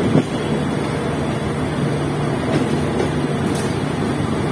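Passenger train running, heard from the first coach behind an EMD GT18B diesel-electric locomotive: a steady low engine drone under the rumble of wheels on rail, with a sharp knock of the wheels over a rail joint or points just after the start and a couple of fainter clicks later.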